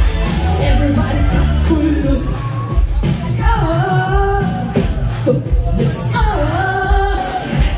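A live pop song: singing over a steady, heavy beat, with sung lines standing out about three seconds in and again around six seconds.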